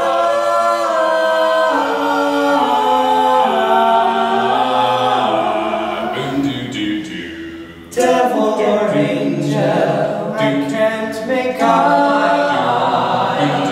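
A small group of men singing a cappella in close harmony, holding chords that move from note to note. The singing starts suddenly, dips briefly about eight seconds in, comes back at full level and fades near the end.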